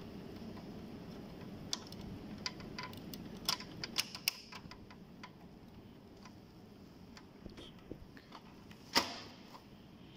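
Sharp plastic clicks as a replacement pickup roller is worked onto its shaft inside an HP LaserJet P2055 printer. There is a quick run of clicks in the first few seconds, a few fainter ones later, and one louder snap near the end, over low steady background noise.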